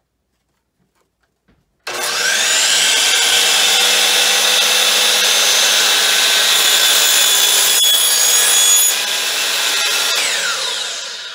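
DeWalt DWS780 12-inch sliding compound miter saw starting up about two seconds in with a rising whine. It runs loud and steady at full speed while the blade is brought down through a board. Near the end it spins down with a falling whine.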